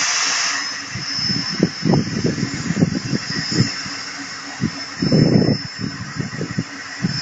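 VL60k electric locomotive standing and running, with a steady high whine over a low hum. A loud hiss of released air dies away within the first second, and irregular low thumps come and go.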